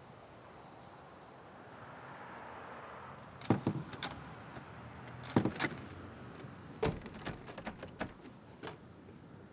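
Knocking and rattling at a closed front door. There are three bunches of sharp knocks: the first about three and a half seconds in, the second two seconds later, and the last a longer run of lighter clicks.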